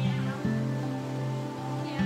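Background music with long held notes; the chord changes about half a second in.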